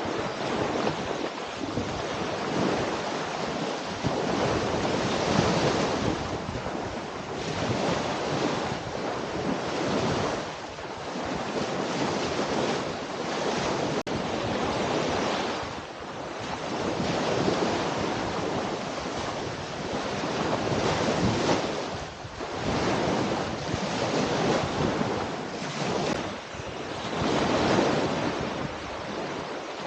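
Rushing water and wind on the microphone, swelling and fading every few seconds.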